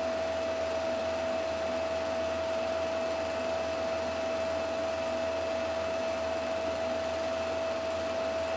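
Film projector running steadily while playing back a reel: an even motor-and-fan whir with a steady high whine over it.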